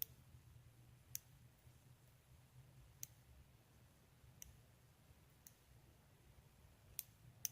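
Small magnet balls clicking as they snap together, one sharp click every second or so, about seven in all.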